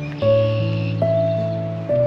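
Gentle background music: sustained notes and chords that change about every second.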